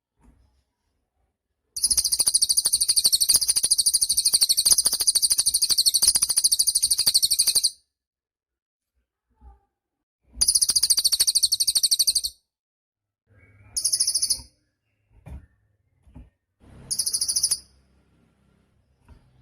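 A cililin songbird singing a very high, rapid trilling song in four bursts: a long run of about six seconds, a shorter one of about two seconds, then two brief bursts near the end.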